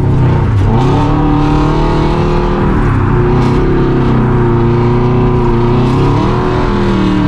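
Car engine revving, its pitch rising and falling several times as it is driven hard.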